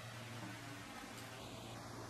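Quiet room tone: a faint steady low hum under an even hiss.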